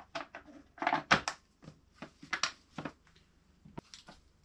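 Plastic terminal-box cover being handled and fitted onto the air compressor's electric motor: a run of irregular sharp clicks and knocks, the loudest a little over a second in.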